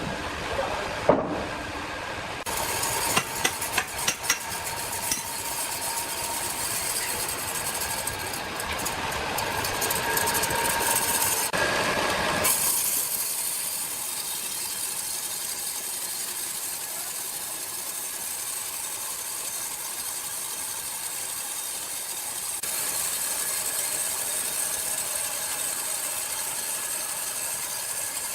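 Sawmill machinery running, with scattered knocks of wood in the first half. About twelve seconds in the sound changes abruptly to a steadier, higher hiss.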